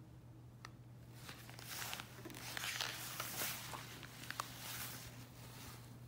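A page of a picture book being turned by hand: a few seconds of paper rustling and sliding with a few small clicks.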